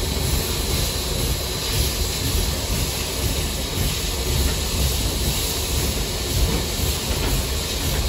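Inside the cab of Southern Railway 4501, a 2-8-2 steam locomotive: a steady hiss of steam over a constant low rumble.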